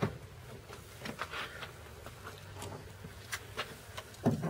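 Light clicks, rustles and knocks of hands and pliers working a rubber vacuum hose back onto its fitting in the engine bay, with a sharp knock right at the start and a louder knock about four seconds in. The engine is off.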